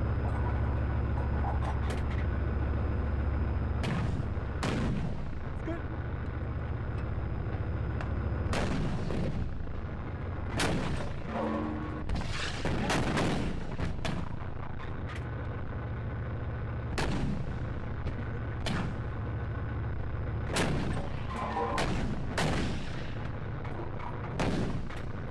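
Tank guns firing on a range: more than a dozen sharp gun reports, several coming in close pairs, over the steady low running of the Leopard 1 tank's engine.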